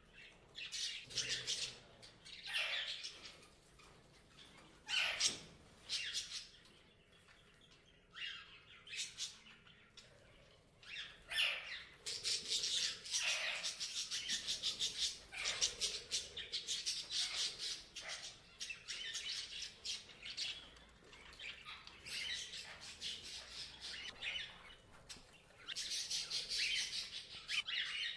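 Parrots chirping and squawking in short, harsh, repeated calls, with bursts of rapid chattering about halfway through and again near the end.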